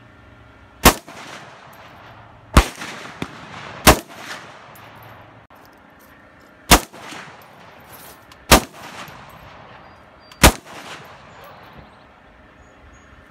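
Six single gunshots fired at an uneven pace, each sharp crack followed by a short echo that trails off.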